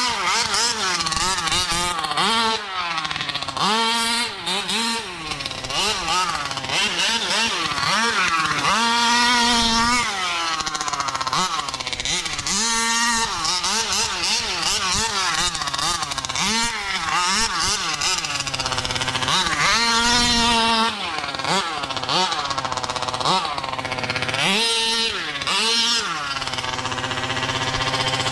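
Taylor 50cc two-stroke engine of a 1/5-scale RC buggy revving hard and easing off over and over as it is driven, its pitch rising and falling with the throttle.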